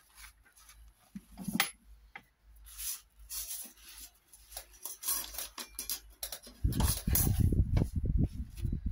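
Crinkling and rustling of a plastic-backed absorbent sheet being unfolded and laid out. Near the end comes a louder dull rubbing as a hand presses and smooths it flat against the mat.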